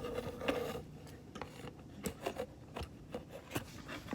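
Faint, scattered clicks and light taps as a model airliner is handled and freed from its packaging.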